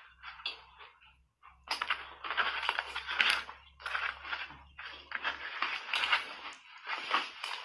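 Frozen block ice coated in matcha powder crunching as a spoon digs into it in a plastic bowl and mouthfuls are chewed. A few short crunches at first, then dense crunching with sharp clicks from about two seconds in.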